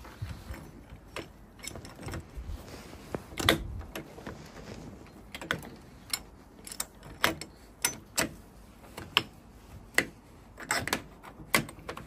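Irregular metallic clicks and knocks of uPVC door hardware being handled as the lever handle comes off its spindle and the door is worked. There are about a dozen sharp clicks, the loudest about three and a half seconds in.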